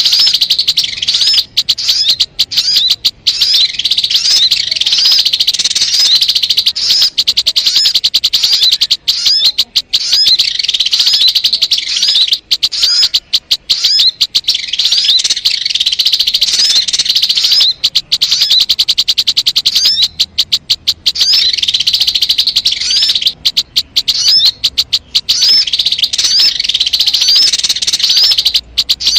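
Sogon bird calls, a loud, unbroken run of fast chattering notes, high in pitch. They break off briefly every few seconds and start again. It is a recording used as a lure to call in sogon birds.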